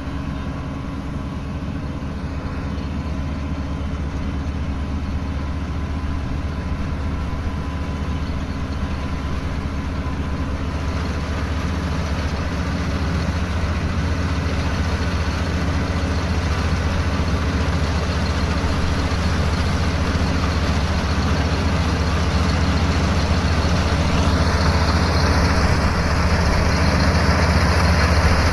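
Rice combine harvester's engine running steadily with a deep hum, growing gradually louder. About 24 seconds in, a higher, rougher mechanical noise joins it.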